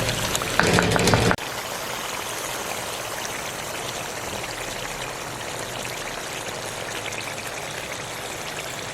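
Egg curry gravy cooking in a pan on the stove: brief stirring and sizzling with sharp clicks, then after about a second and a half the sound drops suddenly to a steady, quieter hiss.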